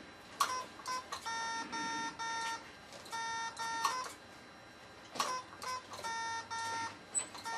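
Electronic Morse code tones from a head-switch Morse typing system: runs of short and long beeps (dots and dashes), each a steady tone, with a few sharp clicks between them, as letters are keyed into the computer.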